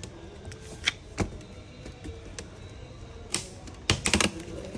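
Sharp clicks and snaps of the metal keyboard plate being prised off an ASUS A456U laptop's plastic top case, its clips breaking free. There are a few single clicks, then a quick run of them near the end.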